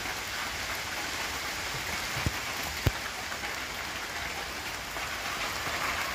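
Steady rain falling, an even hiss, with a couple of sharp taps a little over two seconds in and again near three seconds.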